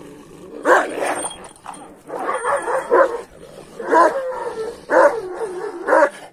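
Kangal shepherd dog on a leash barking aggressively at another dog: a string of loud barks, about one a second.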